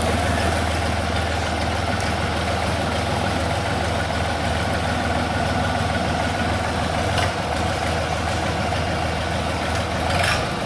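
Long-tail boat engine running steadily at the stern, its propeller churning the water. A few short clicks near the end.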